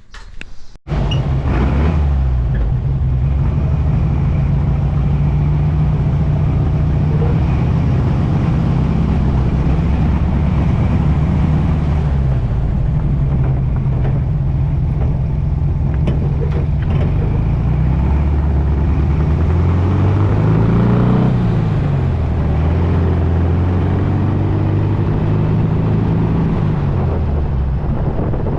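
Volkswagen dune buggy engine running hard after a clutch replacement, its pitch rising and falling with the throttle, with a drop and climb back up about two-thirds of the way through.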